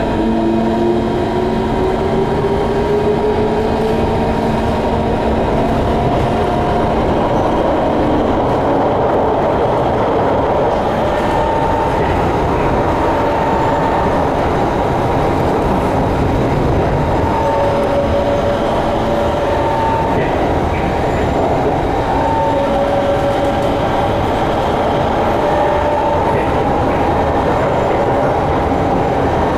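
Interior noise of an SMRT C151 metro train under way: a steady rumble of wheels on rail. Over the first few seconds a motor whine rises in pitch as the train picks up speed, and later some fainter steady tones come and go over the running noise.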